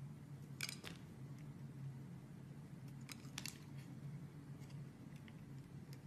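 Utility-knife blade slicing through a block of translucent layered soap, giving faint crisp cracks: a cluster just under a second in and another about three seconds in, with a few lighter ticks after. A steady low hum sits underneath.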